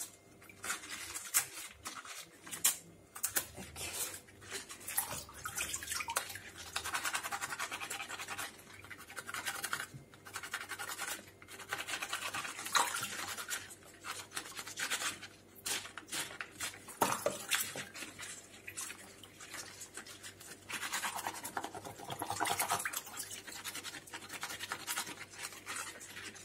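New Zealand mussel shells rubbed hard against each other in rubber-gloved hands over a basin of water: rough shell-on-shell scraping and clacking with small drips and splashes. This is the scrub that cleans fouling off the shells before cooking.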